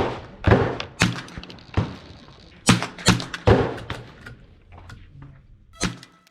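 About eight .22 rifle shots fired at an irregular pace, several within half a second of each other, then a pause before one last shot near the end.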